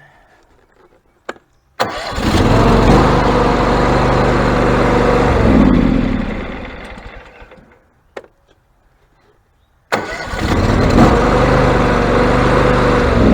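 John Deere X540 garden tractor engine, with a little choke, started on its new starter and catching at once. It runs steadily for about four seconds, is shut off and dies away, then is started again and catches at once. The starter now engages without hesitation, which shows the replacement has cured the sticking Bendix gear.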